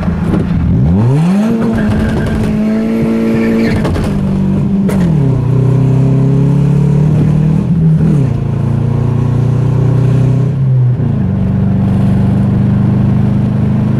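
Mazda 3's four-cylinder engine with a loud aftermarket 'fart can' exhaust, heard from inside the cabin being driven through the gears: the revs climb sharply about a second in, fall around four and eight seconds in, and pick up again each time, with a single sharp crack about five seconds in. Something in the engine has just popped, and it now sounds like a Subaru.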